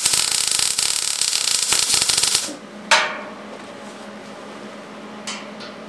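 Electric arc welding on a steel frame strut: a loud, steady crackling arc that stops abruptly about two and a half seconds in, followed by a short second burst near three seconds. A low steady hum continues underneath.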